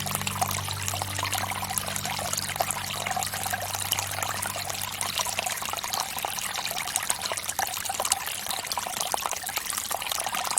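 Water pouring from a bamboo fountain, steadily trickling and splashing into the water below. Low music notes fade out in the first two seconds.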